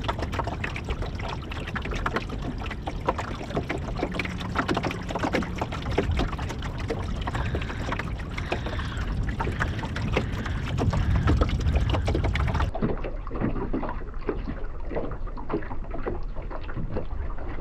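Small skiff under way over choppy water: water slapping against the hull, with wind rushing over the microphone. About thirteen seconds in the sound changes abruptly and turns duller.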